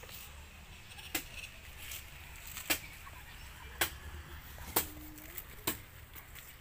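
Metal spoons scooping the soft flesh out of halved young coconuts, giving sharp clicks and knocks against the shells about once a second.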